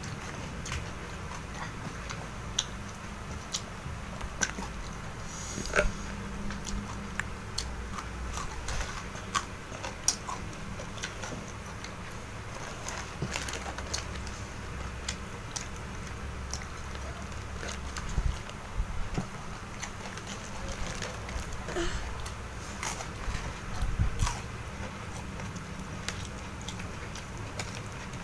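A person eating: wet chewing and mouth smacks with many irregular, sharp little crunches and clicks, a few louder ones scattered through.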